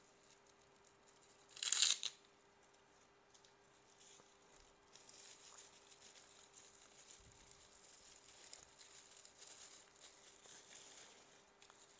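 Bubble-wrap packaging being unwrapped by hand, with one brief loud rip about two seconds in, then a soft steady crinkling of the plastic.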